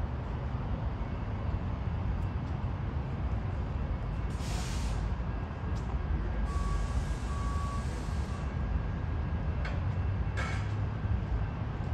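Sounder commuter train standing at the platform with a steady low rumble. Air hisses twice, once briefly about four seconds in and again for about two seconds, and two short beeps sound during the second hiss.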